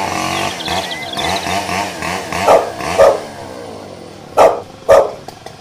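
A chainsaw engine running with a wavering pitch, dying away, while a dog barks twice, then twice more about two seconds later; the barks are the loudest sounds.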